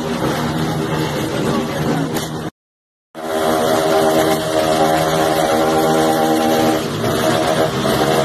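Many motorcycle engines running together in a packed street, making a steady drone with crowd voices mixed in. The sound cuts out completely for about half a second near the middle, then returns with the engines held at steady, higher revs.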